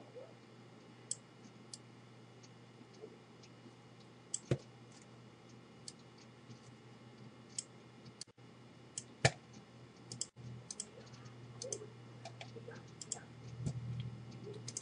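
Computer mouse buttons clicking in scattered, irregular single clicks and quick pairs while colouring with a drawing tool, over a faint low hum that swells near the end.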